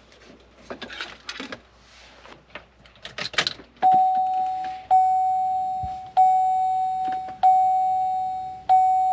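Silverado door chime sounding through the separate chime speaker wired into the iDatalink Maestro harness: a single-pitched bong, each strike sharp and fading, repeating five times about every 1.2 s from about four seconds in, a sign that the chime speaker is hooked up and working. Before it, a few light clicks and handling noises.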